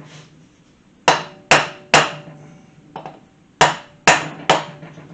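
Hammer tapping on a Kawasaki KZ400 motorcycle engine's cylinder head to break the stuck head loose: two sets of three sharp strikes about half a second apart, with one lighter tap between them, each leaving a short metallic ring.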